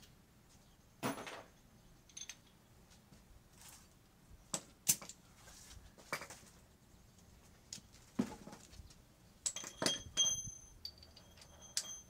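Metal hand tools clinking and clanking as they are handled and set down: scattered sharp knocks, the last few ringing briefly.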